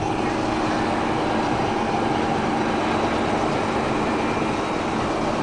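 Diesel engine of a Mercedes concrete mixer truck running steadily as the truck drives down a snowy dirt track, heard from inside the cab, with a steady hum over the rumble.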